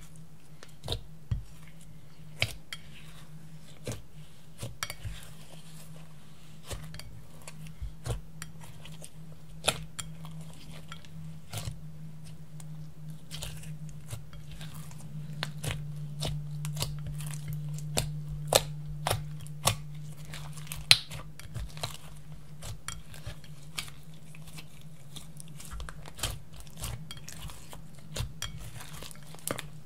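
Hands kneading and folding glittery slime with crushed makeup powder in a glass dish, making irregular sticky pops and clicks, a few of them sharp and loud. A steady low hum runs underneath.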